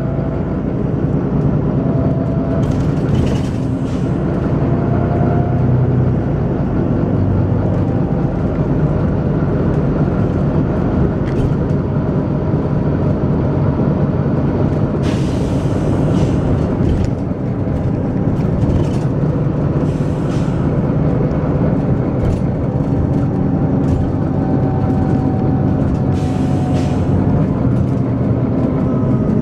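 Volvo B9TL double-decker bus running, its six-cylinder diesel engine thrashing hard with a whine that rises and falls. Several short hisses of air from the air system break in during the run.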